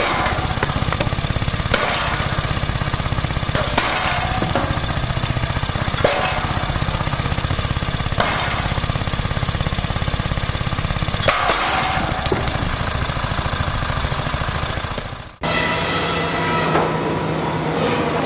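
A heavy machine's engine running with a fast, even knocking pulse and a louder surge about every two seconds. About three-quarters of the way through it cuts off abruptly, and a different machine takes over with a steady low hum.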